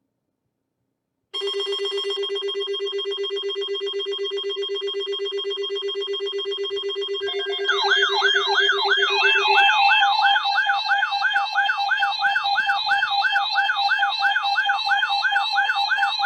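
Electronic emergency alert tones: a loud, steady buzzing tone starts about a second in. About halfway through, a fast-warbling, siren-like alarm joins it, with steady higher tones under it, and the buzz stops soon after.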